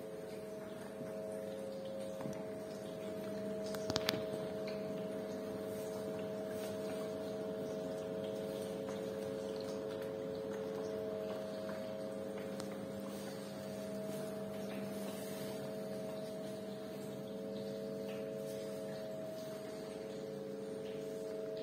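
Industrial ultrasonic cold-fog humidifier running with a steady hum made of several steady tones over a faint hiss. A single sharp click comes about four seconds in.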